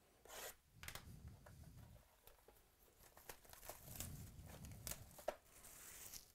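Shrink wrap being slit and torn off a sealed trading-card hobby box: quiet plastic crinkling and tearing in short bursts, with a sharp click about five seconds in and a longer rip near the end.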